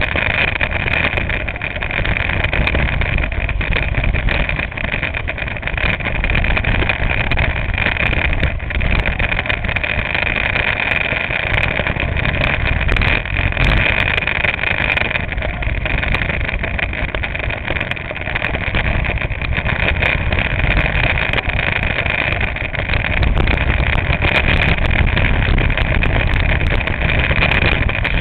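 Go-kart engine running under load, heard through a camera mounted on the kart, a loud, steady drone with the rumble of the chassis as it laps the track.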